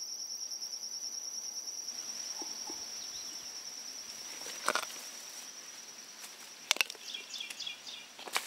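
A high, steady insect trill that fades away over the first half, with a few sharp crunches from a Galápagos giant tortoise biting into small manzanillo fruits, the loudest about halfway through.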